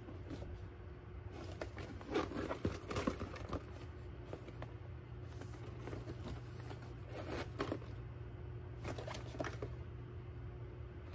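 Louis Vuitton Speedy handbag being handled and searched inside, with rustling and scraping of the bag and its zipper hardware in several short bursts, over a steady low hum.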